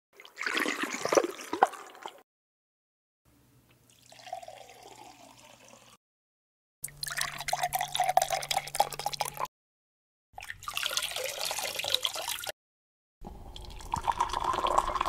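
Short water recordings played back one after another, each two to three seconds long with silent gaps between them: a water drip, water poured into a glass, a glass being filled, water drops running into a sink, and boiling water poured from a kettle into a mug.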